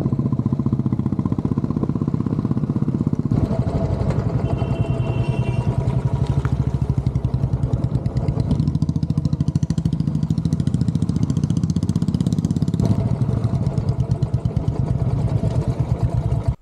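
Royal Enfield 350's single-cylinder engine running on the move, a fast, even beat of exhaust pulses. The tone shifts a few times where separate riding shots are joined.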